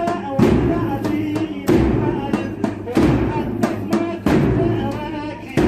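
A group of mourners chanting a latmiya lament, with heavy rhythmic chest-beating thuds landing together about every 1.3 seconds.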